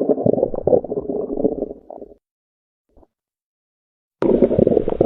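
Recorded abdominal bowel sounds played as an example of an abnormal bowel sound: irregular gurgling for about two seconds that cuts off abruptly, then a second gurgling recording starting about four seconds in.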